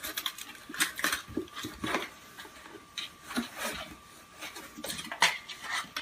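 A kitten scrambling over and into a cardboard box: irregular scratches, rustles and light knocks of claws and paws on the cardboard.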